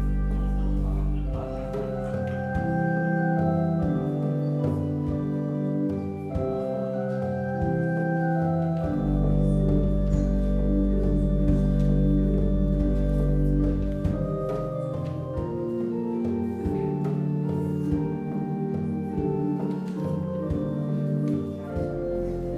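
Organ playing slow sustained chords, with long held deep bass notes underneath that change only every few seconds.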